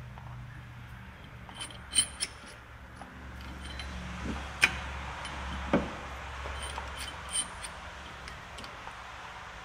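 Scattered sharp metallic clicks and clinks from a caliper wind-back tool being turned by hand to screw a rear brake caliper piston back in, over a low steady hum.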